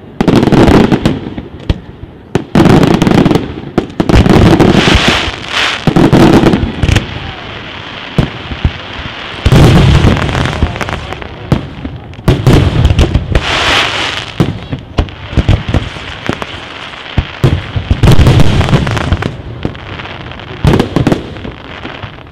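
Aerial firework shells bursting in quick succession: loud booms every second or two, with crackling between them.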